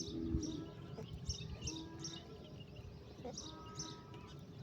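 Small birds chirping in the background: short, high chirps repeated several times a second, with a faint steady hum beneath.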